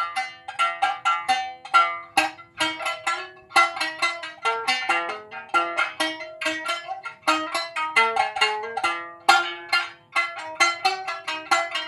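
Sanshin, the Okinawan three-stringed lute, played solo as a melody of plucked notes, several a second, with a soothing tone. The instrument has just been fitted with new karakui tuning pegs and tuned.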